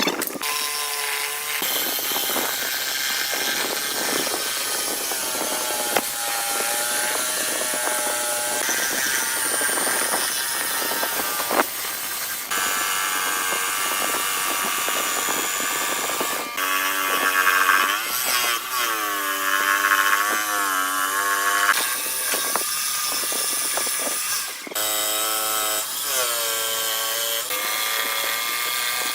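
Power tools working wood in a run of short clips, a motor's whine dipping in pitch and recovering as the tool bites in, with abrupt changes from one clip to the next.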